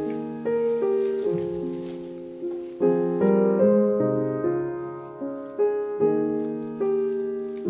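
Background piano music: slow notes struck one after another, each left to ring and fade.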